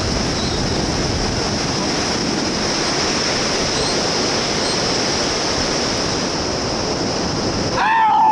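Steady rushing roar of a river running through a gorge below. Near the end it gives way to a loud, high yell from a person that falls away sharply.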